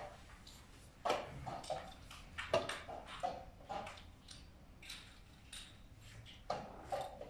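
Irregular clacks of plastic draughts pieces being set down on boards and chess-clock buttons being pressed at blitz games around the hall, the sharpest about a second in and again about two and a half seconds in.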